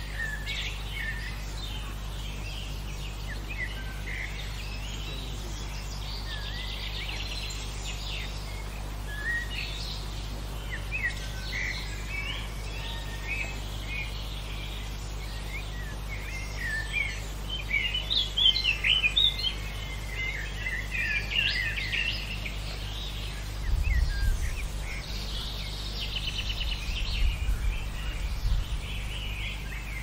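Several songbirds chirping and singing in a natural field recording, with short calls and trills overlapping and busiest around the middle. A steady low hum lies underneath, and a few low rumbles come near the end.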